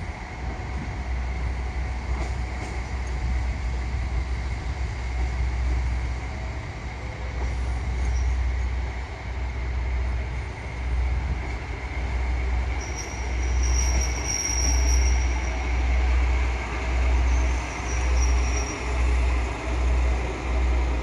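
A train running at a station platform: a continuous rumble with a thin, high wheel squeal that rises briefly about two-thirds of the way in and again shortly after. Near the end the rumble swells and fades about once a second.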